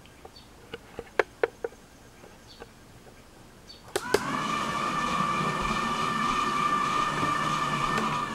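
A few light clicks, then two sharper clicks about four seconds in as the controller's switches are thrown. A pair of cheap geared DC motors then start and run with a steady whine, driving the wheels of a small homemade car.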